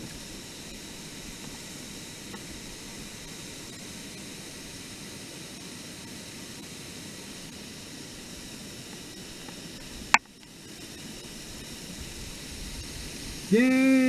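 Steady rushing of a waterfall spilling over a rock ledge into a pit. About ten seconds in there is a sharp click, after which the rush briefly drops away and builds back up.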